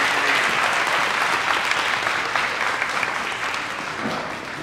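Audience applauding with many hands clapping, dying down toward the end.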